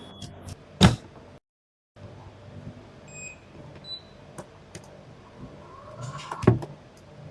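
12-volt roller-blind motor running with a low steady hum, with a sharp click about a second in and another near the end.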